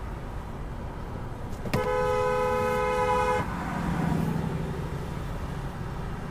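Car horn sounding one steady blast about a second and a half long, starting near two seconds in, over continuous road rumble.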